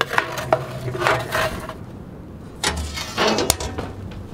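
A metal baking tray scrapes and clatters as it slides along the rails into a steel oven. The oven's metal door is then swung shut, ending in one sharp latch click.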